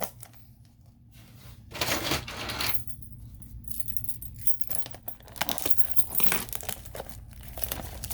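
Toy packaging being handled and opened: crinkling and tearing of the wrapping in two longer stretches, with scattered small clicks and rattles.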